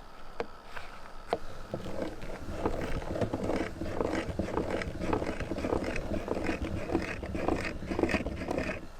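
Meat grinder grinding soap: a steady low hum with dense, irregular crackling from about two seconds in until just before the end.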